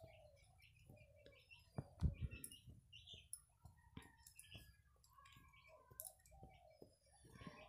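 Faint scattered clicks and knocks of raw papaya chunks being tipped from a steel bowl into a steel kadai of cooking chicken, with one louder thud about two seconds in.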